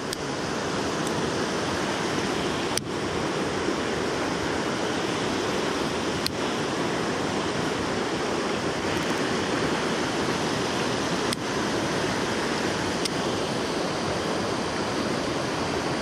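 Mountain stream rushing over rocks and riffles, running high and muddy after days of rain, a steady, even rush of water.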